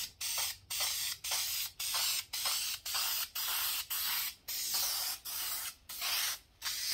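Aerosol spray paint can hissing in short repeated bursts, about two a second, as paint is sprayed onto a plywood sign.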